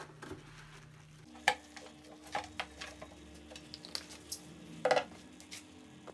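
A few light clinks and knocks as a brown glass bottle is handled and set down on a lab bench, the loudest about a second and a half in and again near five seconds.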